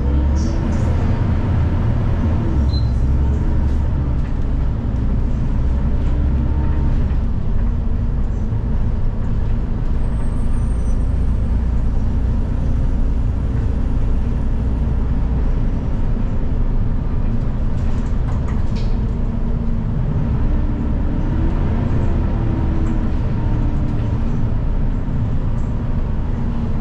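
Inside a city bus at the back seat: a steady low engine and road rumble, with the engine's note rising and falling as the bus speeds up and slows.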